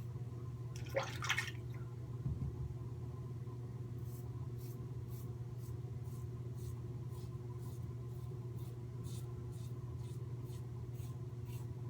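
Merkur 37c slant-bar safety razor with a Derby blade scraping through lathered stubble in short, regular strokes, about two to three a second. A brief splash of water about a second in, over a steady low hum.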